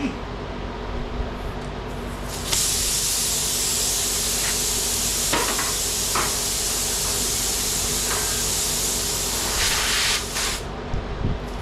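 Hiss of gas escaping under pressure. It starts sharply a couple of seconds in, holds steady for about eight seconds, then cuts off, with a few small clicks partway through.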